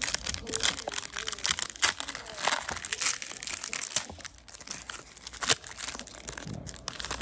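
Foil wrapper of a Panini Prizm trading-card pack being torn open and crinkled by hand: a dense run of sharp crackles and rips.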